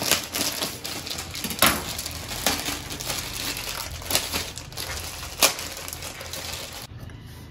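Plastic bread-roll packet crinkling and rustling as it is torn open and handled and the pav rolls are pulled out, with several sharper crackles along the way. The crinkling stops shortly before the end.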